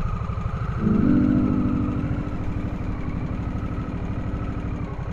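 2022 Harley-Davidson Nightster 975's liquid-cooled V-twin pulling away and riding on. The engine gets louder under throttle about a second in and eases off near the end.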